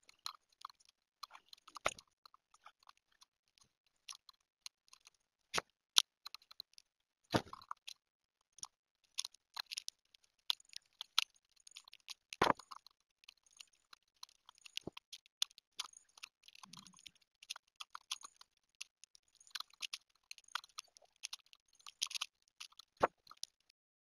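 Birds pecking and cracking black-oil sunflower seeds in a plastic feeder tray, heard close up through the feeder camera's microphone: a steady scatter of small crunches and clicks, with a few louder sharp knocks.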